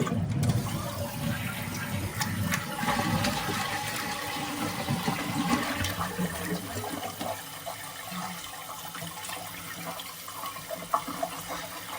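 Toilet tank water running out through the held-up flapper into the bowl, flush-like, loudest in the first half and easing after about seven seconds. The flapper is lifted so rust scum can be rubbed off its underside, the cause of the leak.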